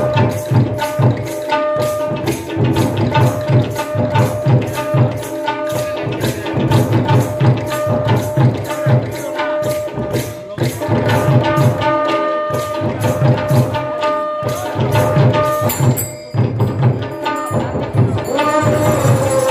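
Devotional sankirtan music: hand drums played in a quick rhythm, with small hand cymbals striking a steady beat over a held melodic note. About sixteen seconds in the cymbal strokes stop briefly.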